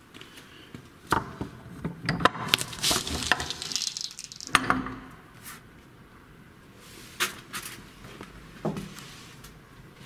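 Footsteps and knocks of someone climbing stairs in a small room. A dense stretch of rustling and scraping runs from about two to four and a half seconds in and ends in a knock, followed by a few scattered knocks.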